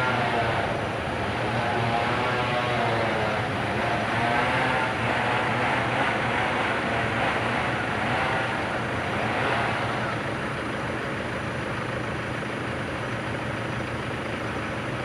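Steady car engine and road noise from inside a moving car. A faint voice is heard at times in the first few seconds.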